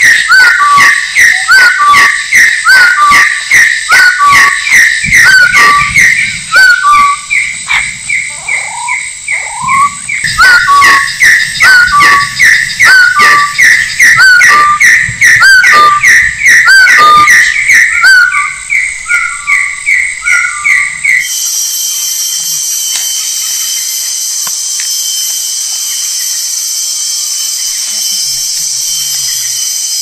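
A bird giving loud whistled calls over and over, about two a second, each with short clicky notes. About two-thirds of the way through the calls stop and a steady high-pitched drone takes over.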